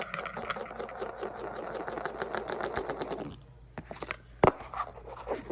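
A hand-spun wheel ticking rapidly and evenly as it spins, stopping about three seconds in, followed by a few separate knocks.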